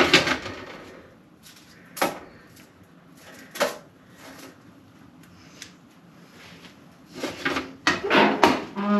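Kitchen clatter as a baking tray of garlic bread and a spatula are handled on the counter. There are a few separate sharp knocks a second or two apart, then a busier run of clattering near the end.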